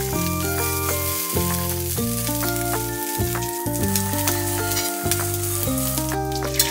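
Bacon pieces sizzling as they fry in a small rectangular non-stick frying pan, with background music playing over it.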